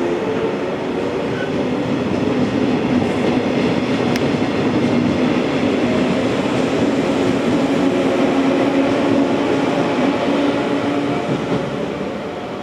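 A JR West 115 series electric train, two units coupled, pulling away from the platform: its motors hum in a low drone that creeps slowly up in pitch as it gathers speed, over wheel rumble and clacking on the rails. The sound fades near the end as the last car passes.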